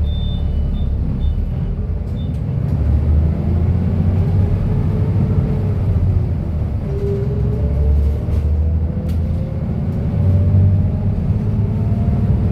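Cummins diesel engine of a King Long KL6112U1 city bus, heard from on board, pulling hard at high revs. Its pitch rises twice with a dip between, as the driver works up through the five-speed manual gearbox.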